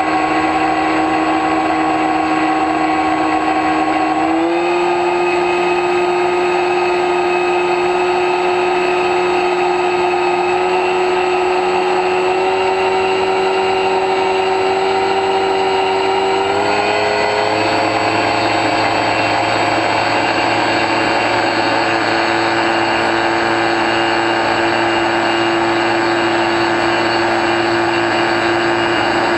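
X-UAV Talon RC plane's electric motor and pusher propeller, a steady loud whine in flight. Its pitch steps up slightly about four seconds in and again around sixteen seconds in.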